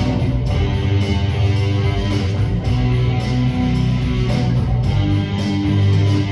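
Live worship band playing an instrumental passage between sung lines: strummed guitar over bass, steady and full.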